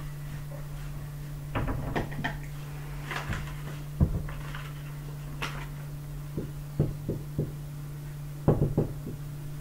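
Marker pen on a whiteboard, drawing the lines of a table: scattered short taps and squeaks. A steady low hum runs underneath.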